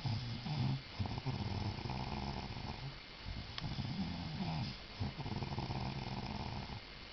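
A sleeping person snoring really loud: several long, rattling snores one after another with short pauses for breath between them.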